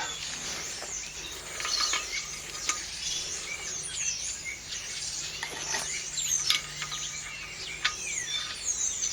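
Birds chirping and singing, many short call notes overlapping, with a few sharp clicks in between.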